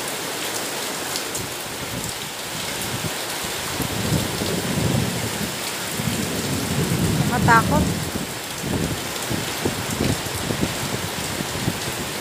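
Heavy rain pouring steadily, with a low rumble of thunder from about four seconds in to about eight seconds.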